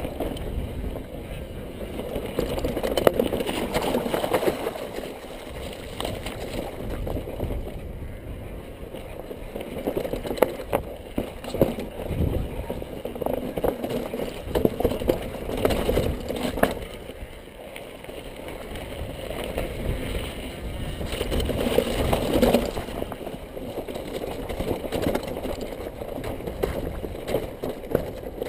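Yeti 575 mountain bike rolling down a rocky, stone-slabbed trail: tyres running over stone and gravel, with frequent knocks and rattles from the bike as it hits rocks.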